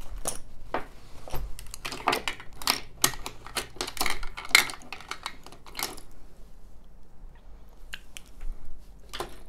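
Makeup brushes and other small hard objects clattering and clicking as they are rummaged through and set down. The clatter is busy for about six seconds, then gives way to a few scattered clicks.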